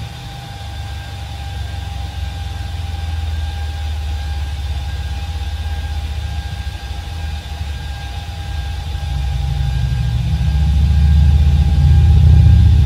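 HP ProLiant DL380p G8 rack server's cooling fans running loudly during boot, a steady low drone with a faint whine over it that grows louder from about nine seconds in.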